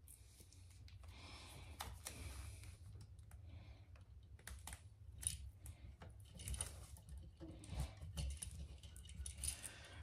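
Faint scattered clicks and rustling of insulated wires and WAGO 221 lever connectors being pushed into a metal electrical box, the clicks coming more often in the second half.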